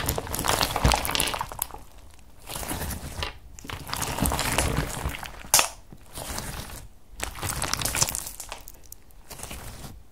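Translucent blue slime with star glitter and embedded beads being squeezed and kneaded by hand: wet crackling and squishing in repeated squeezes a second or two long, with quieter pauses between and one sharp pop about halfway.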